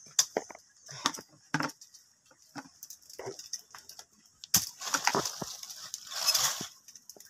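Dry twigs and dead leaves snapping and crackling as they are broken and crumpled by hand to build a small fire, in a string of short irregular snaps with longer rustling bursts around five and six seconds in.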